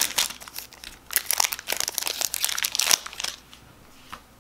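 Crinkling and crackling of a foil Pokémon booster-pack wrapper as it is handled and the cards are pulled out, in two stretches that stop about three seconds in. One small click follows near the end.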